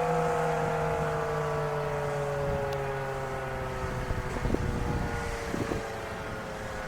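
Federal Signal 2001-SRN warning siren winding down at the end of its test, its tone sliding slowly lower and fading away. A few bumps of wind on the microphone come midway.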